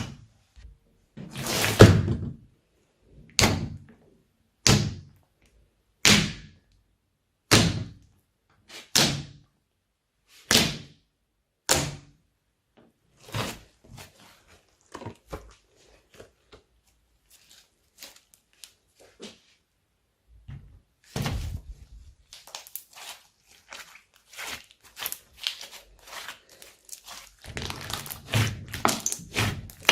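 Slime being pressed and squished by hand: a series of sharp pops about every second and a half for the first twelve seconds, fainter clicks after that, and a dense run of small pops near the end.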